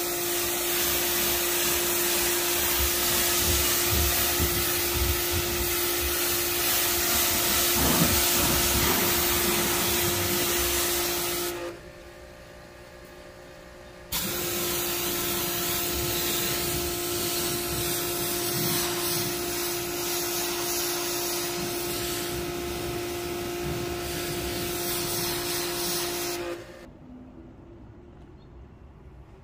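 High-pressure car-wash spray wand blasting water onto a car, a steady hiss with a steady hum underneath. It breaks off for about two seconds midway, resumes, and stops near the end.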